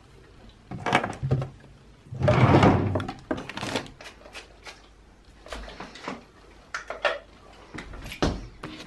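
A string of short handling noises in a small room: rustles, clunks and knocks of objects being picked up and set down, the longest and loudest about two seconds in.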